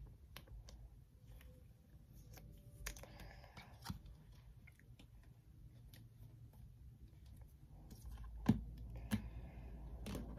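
Trading cards being handled: faint rustling and light clicks as the cards are flipped and slid against one another, with two sharper clicks near the end.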